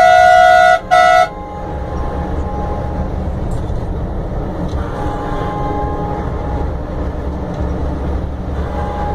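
Bus horn blaring at one steady pitch, a long blast and then a short one, ending after about a second. The steady running of a bus engine and road noise follows, heard from the front of the bus at speed.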